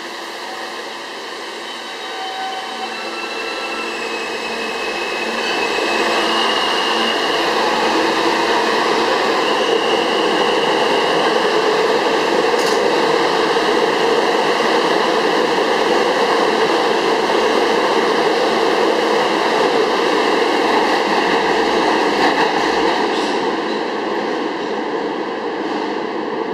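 Alstom R160A-1 subway train pulling out of an underground station: its electric propulsion whines upward in steps as it accelerates, building into steady loud running and wheel noise that eases slightly near the end as the last car leaves.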